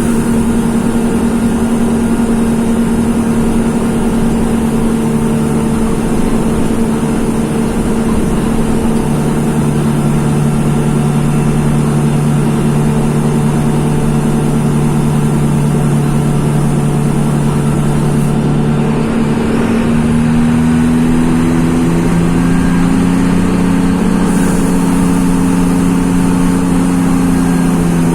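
Mercedes-Benz OF-1724 bus's OM-926 LA turbodiesel inline-six running steadily. About two-thirds of the way through, its pitch rises slightly and then holds.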